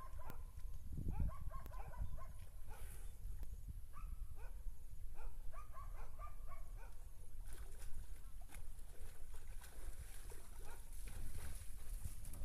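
A dog yipping and whimpering in quick runs of short, high-pitched calls, over a steady low rumble.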